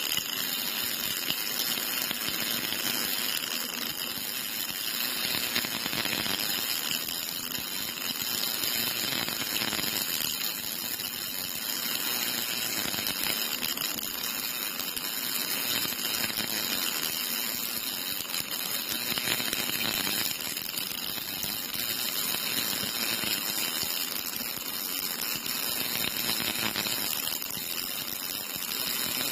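Cobot-held MIG welding arc burning continuously along a seam in steel tube, a steady crackling hiss with spatter.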